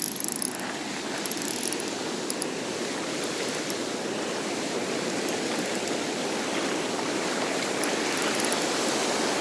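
Surf washing up the beach in a steady rush, growing slightly louder. In the first couple of seconds there is light clicking from a Trabuco Xenial 3500SW spinning reel while a corvina is on the line.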